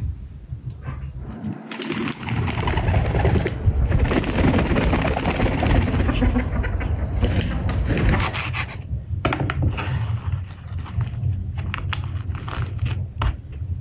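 Chickens clucking in a yard, then a knife chopping fresh dill on a wooden cutting board in short, irregular cuts.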